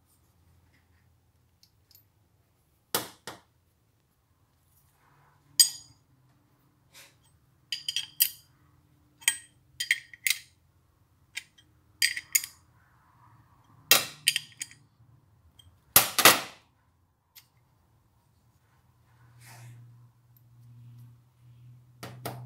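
Brass tap parts and a steel ring spanner clinking and clicking against each other while the tap is reassembled. Irregular sharp metallic clicks, the loudest about sixteen seconds in.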